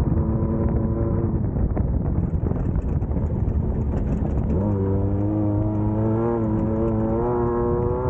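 Class 1600 off-road race car's air-cooled VW flat-four engine running hard under load. Its note rises sharply about halfway through and then holds with small swells.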